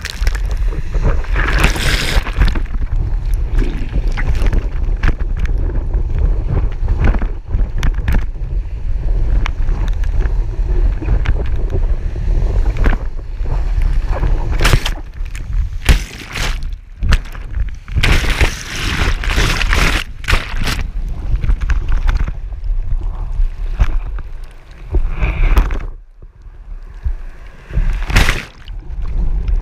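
Surf rushing and spray splashing against a surfboard-mounted action camera while a surfer paddles and rides a wave, with a constant low rumble of wind and water buffeting the microphone. Several louder surges of spray hit the camera, the biggest in the middle.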